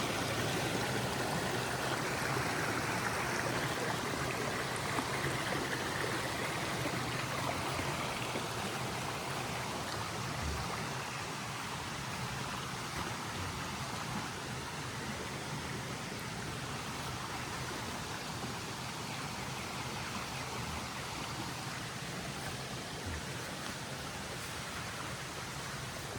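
Rain-swollen creek flowing steadily, a continuous rush of running water that eases slightly about ten seconds in.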